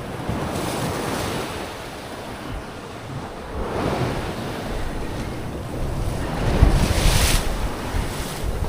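Sea waves washing in, in surges about three seconds apart, with wind rumbling on the microphone.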